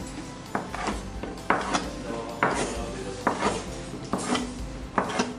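Metal bench scraper clacking and scraping on a floured wooden worktop as it lifts shaped brioche dough pieces: sharp clacks, mostly in pairs, about one pair a second.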